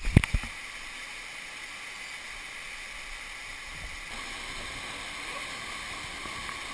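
Steady rush of a small waterfall pouring into a rock pool in a narrow canyon, opening with a few sharp knocks.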